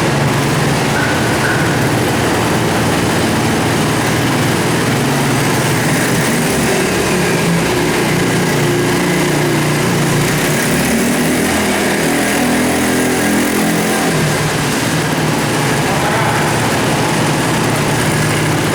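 A Roketa 50cc two-stroke ATV engine running, its pitch wandering up and down through the middle as the throttle changes.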